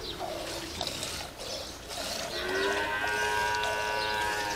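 Milk squirting into a steel pot as a cow is milked by hand. About halfway through comes one long, steady moo from cattle, the loudest sound.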